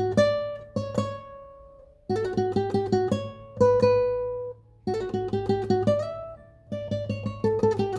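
Solo acoustic guitar playing a melody: short phrases of quick plucked notes, each ending on a held note that rings and fades before the next phrase.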